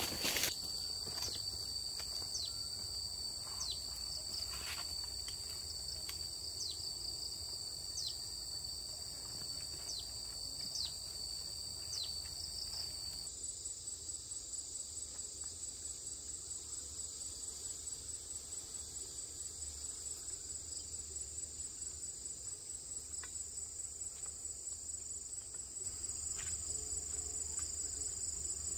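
Insects trilling steadily at a high pitch, switching to an even higher trill about thirteen seconds in. Light ticks and rustles are scattered over the first half.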